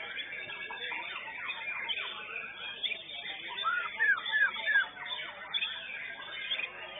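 White-rumped shamas (murai batu) singing in competition: a dense, unbroken mix of whistles and chattering phrases, with a run of three loud rising-and-falling whistles about four seconds in.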